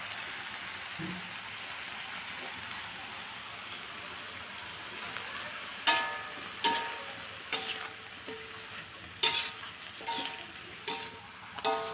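Chopped genjer stir-frying in a metal wok, sizzling steadily. From about six seconds in, a metal spatula scrapes and clanks against the wok about eight times, each strike ringing briefly.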